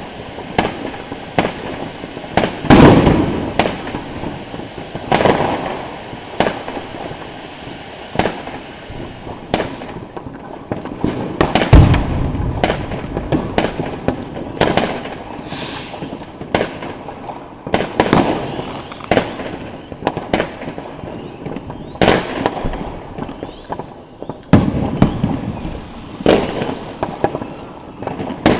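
Consumer fireworks firing: an irregular run of sharp pops and heavier bangs from firework cakes, with a steady hiss underneath that thins out about a third of the way in.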